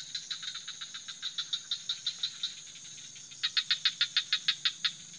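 Night chorus: a steady high-pitched insect trill under a rapid train of chirps, about six or seven a second, which grow louder for a stretch past the middle.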